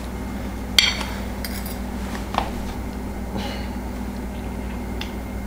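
A metal fork clinking and scraping against a ceramic dinner plate, with one sharp clink about a second in and a few fainter taps after it, over a steady low hum.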